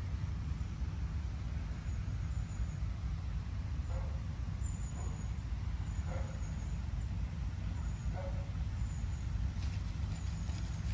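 A steady low rumble with faint high chirps repeating every second or so. Near the end, dry fallen leaves crackle and rustle underfoot.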